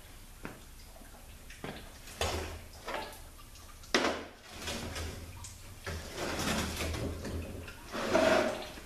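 Metal transmission parts and tools being handled during a teardown: a few separate knocks, then a longer stretch of scraping, shuffling noise from about six seconds in.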